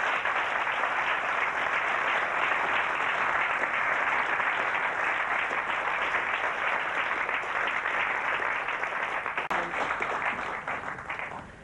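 Studio audience applauding: a steady, dense round of clapping that dies away near the end.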